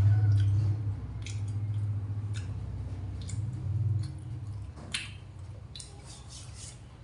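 Eating sounds: a low hum, loudest in the first second and fading out after about four seconds, with a few scattered sharp clicks and crisp crunches.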